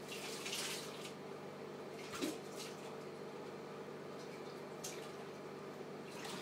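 A cat scuffling and pawing against a mirrored closet door on carpet: a few soft brushing scuffs, a light thump about two seconds in and a click near five seconds, over a steady low hum.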